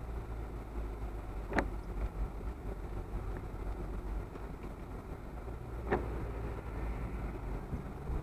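Car cabin running noise picked up by a dashcam: a steady low engine and tyre rumble while driving on a wet road, with two short clicks, one about a second and a half in and one about six seconds in.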